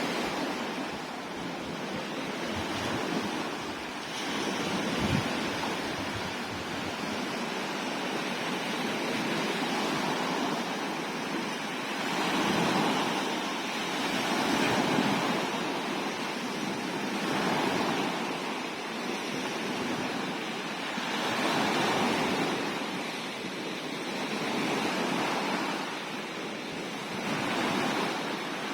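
Sea waves washing in, the rush of water swelling and easing every few seconds, with a single short low thump about five seconds in.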